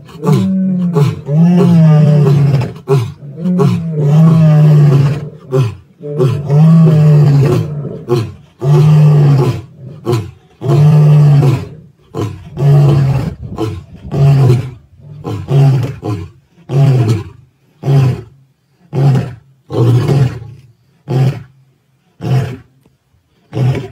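Male lion roaring a full bout: long, low roars at first, giving way to a run of shorter grunts about a second apart that fade toward the end.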